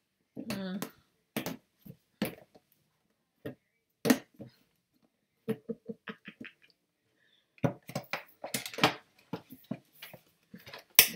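Cardboard box and plastic packaging being opened and handled: scattered clicks, taps and crinkles, growing denser over the last few seconds.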